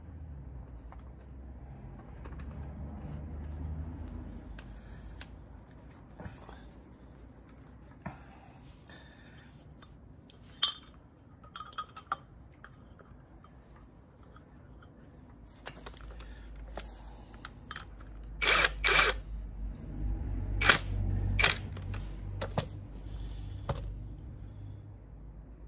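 Scattered clicks and metal clinks of parts being handled and fitted to an engine, as a metal support bracket and hoses are offered up. A run of louder, sharper knocks comes about three quarters of the way in.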